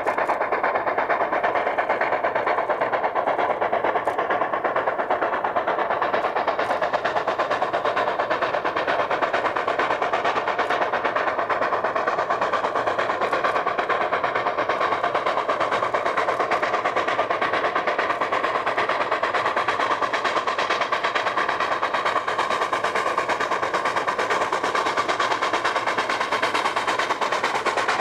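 Steam locomotive working hard, its exhaust beating in a rapid, steady rolling rhythm while it throws sparks from the chimney.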